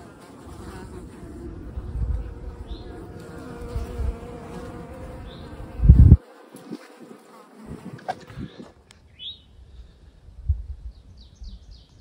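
Flies buzzing in the pit of a trail privy, a steady drone, with a thump about six seconds in. The buzzing drops away after about eight and a half seconds, leaving a few short bird chirps.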